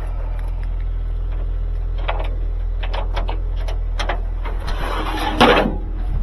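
A vehicle engine idling steadily, with scattered clicks and knocks over it and a louder clatter about five and a half seconds in.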